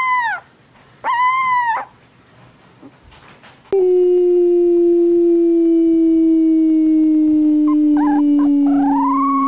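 Animal cries: two drawn-out, arching calls, then a long, steady low tone that slowly falls over about six seconds. Higher howling cries start near the end.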